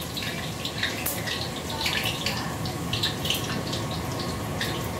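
Ginger frying in hot oil in a wok: a steady sizzle with frequent small crackling pops.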